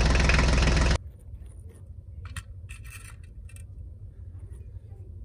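Miniature clay bricks clicking and knocking lightly as they are set one by one into a plastic toy trailer, a few scattered taps. A loud steady sound cuts off about a second in.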